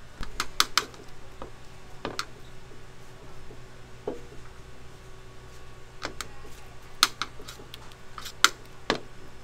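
Dumplings being wrapped by hand at a steel worktable: scattered sharp clicks and taps from the flat filling spatula knocking on the plate and from hands and wrappers on the table. The taps come in quick clusters about half a second in and again near the end, over a low steady hum.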